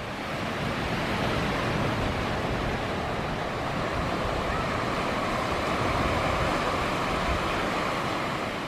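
Steady wash of ocean surf, an even rushing noise with no breaks.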